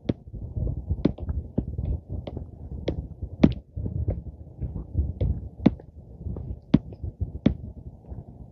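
Footsteps on a dirt trail: irregular sharp crunches every half second to a second, over a steady low rumble of wind buffeting the microphone.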